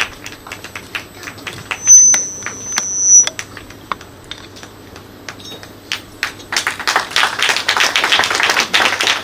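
Sparse taps and clicks, with a brief high steady tone for about a second and a half around two seconds in. From about six and a half seconds in, scattered audience clapping fills the rest.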